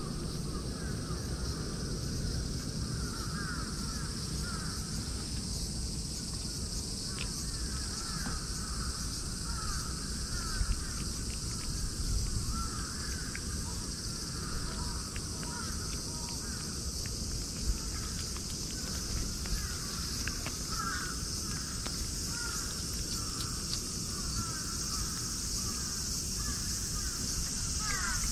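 Outdoor ambience: a steady high-pitched insect drone with repeated short bird calls throughout, over a low rumble.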